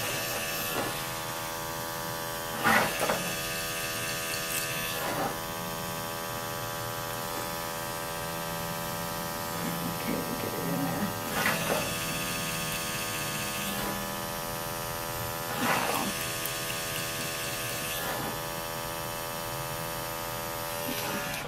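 Electric pet clippers running with a steady hum as they work through a cat's matted fur, with a few brief louder rasps along the way. The hum cuts off at the end.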